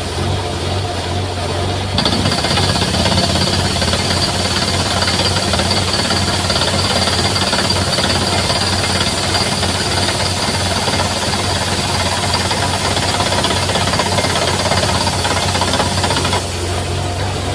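Borewell drilling rig running: rapid, continuous hammering over a steady low drone, growing louder about two seconds in.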